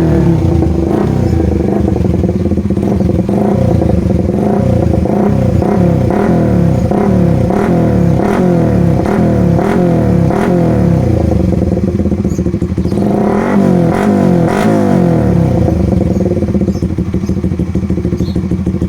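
Suzuki Raider 150 Fi single-cylinder fuel-injected engine running through an open Namban exhaust pipe. It idles with a rhythmic pulse about twice a second and revs up and back down about thirteen seconds in.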